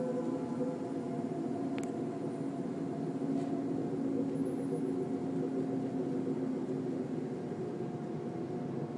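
Steady low droning hum made of several held tones, the kind of sound reported as an unexplained noise from the sky (a 'sky trumpet' or 'skyquake').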